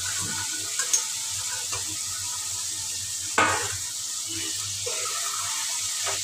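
Fried soya chunks sizzling in roasted masala in a steel kadhai, with a metal spatula stirring and scraping against the pan in short clicks; a louder metal knock comes about three and a half seconds in.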